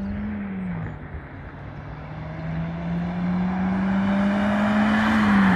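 Volkswagen Saveiro pickup accelerating hard toward the listener. The engine note drops at a gear change about a second in, climbs steadily and grows louder as the pickup approaches, then drops again at the next shift near the end.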